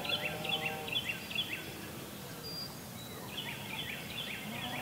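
A songbird singing a fast series of repeated whistled notes, about four a second, over outdoor background noise. It sings one run that ends about a second and a half in and starts another near the end.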